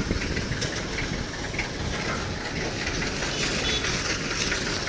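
Diesel engine of heavy road-construction machinery running steadily, a low rumble with light mechanical rattling and clicks over it.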